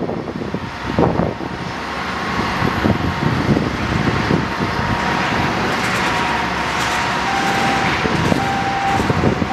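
Pushback of a Boeing 787-8 by an aircraft tug. The tug's engine runs under a jet-engine rush that builds over the first few seconds, with a steady high whine.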